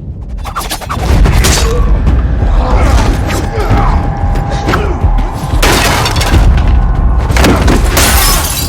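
Action-film soundtrack: loud orchestral-style score over heavy low booms and repeated crashing impacts, swelling sharply about a second in.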